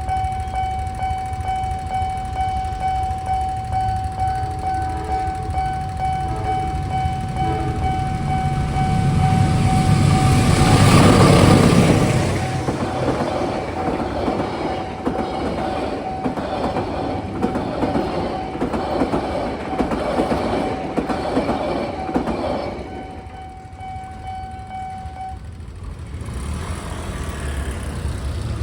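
Railway level-crossing warning alarm sounding one steady, unbroken high tone while a train passes the crossing. The train's noise swells about a third of the way in, is loudest a few seconds later, and carries on as a rhythmic clatter of wheels over the rails. It fades out shortly before the alarm stops near the end.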